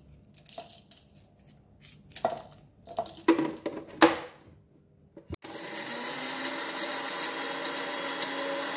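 Panasonic MX-900M blender's dry-mill jar grinding dried chillies into flakes: the motor starts about five and a half seconds in and then runs steadily. Before it starts there are a few scattered clicks and knocks.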